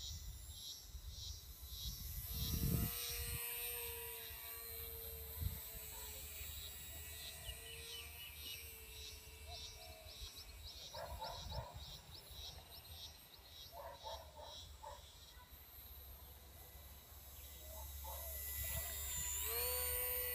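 Electric motor and propeller of a micro RC P-40 Warhawk flying overhead: a faint, high whine that shifts in pitch with the throttle, then rises and grows louder about a second before the end as the plane comes nearer. Regular high chirps, about two a second, and other animal calls sound in the background, with light wind rumble.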